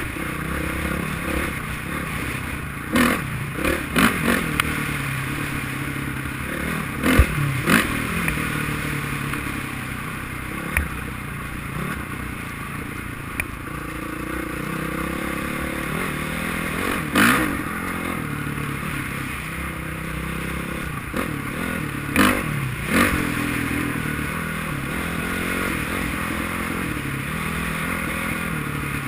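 Honda CRF450R's single-cylinder four-stroke engine running under way, its pitch rising and falling with the throttle. Several sharp knocks and clatter come through, clustered in the first third, near the middle and about three quarters of the way in.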